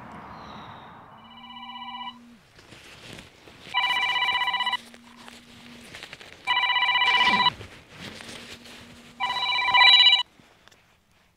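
Mobile phone ringing: a ringtone of about one-second rings, four of them roughly two and a half seconds apart, the first quieter and swelling. A low buzz sounds in the gaps between rings.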